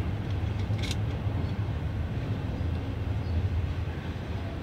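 Steady low rumble of background noise, with a short click about a second in as a cable is worked onto a battery terminal post.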